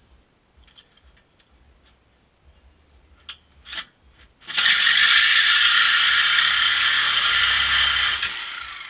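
A few light clicks and taps, then about four and a half seconds in a corded reciprocating saw starts cutting into the exhaust pipe at the muffler, running loud for about four seconds before winding down.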